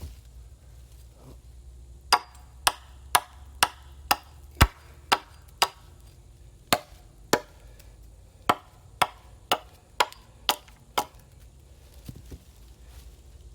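Sharp strikes of a hand tool on wood, about sixteen blows at a steady pace of roughly two a second, in three runs with short pauses between.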